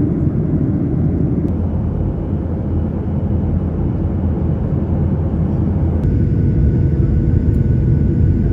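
Cabin noise of a Boeing 737 airliner in flight: a steady low rumble of jet engines and airflow heard from inside the cabin. It shifts abruptly about a second and a half and six seconds in, and a faint steady whine is heard in the later part.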